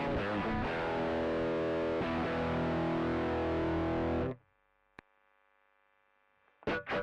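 Distorted electric guitar from a 1974 Fender Telecaster Custom played straight into a SansAmp Classic amp-simulator pedal in its Norm (Mesa) mode, recorded direct: a chord rings out and cuts off suddenly about four seconds in. A single sharp click comes about a second later. Choppy distorted strumming starts again near the end, now in the pedal's Lead (Marshall) mode.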